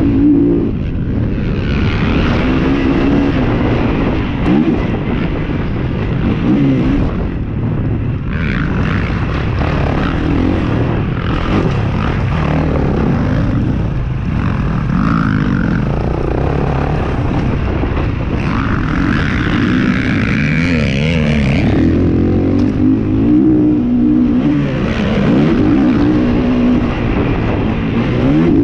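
Kawasaki KX450 four-stroke single-cylinder motocross engine under hard riding, its pitch rising and falling over and over as the throttle is opened and shut through corners, jumps and straights. It is heard from a camera mounted on the bike.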